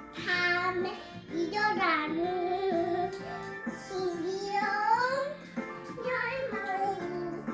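A young child singing a melody in sung phrases with pitch glides, over instrumental background music.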